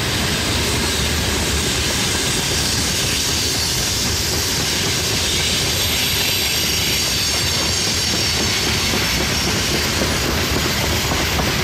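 Freight wagons of a long freight train rolling past on a curve: a steady rumble and clatter of steel wheels on the rails, with a faint high wheel squeal that grows in the middle.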